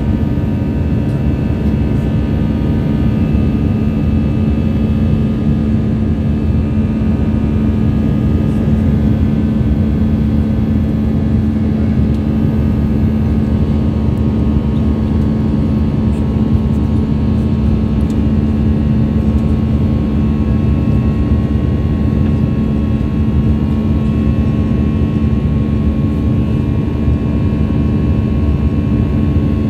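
Airbus A319-112's CFM56-5B turbofan engines heard inside the cabin in flight: a loud, steady rumble with a steady low hum and several fainter higher tones over it.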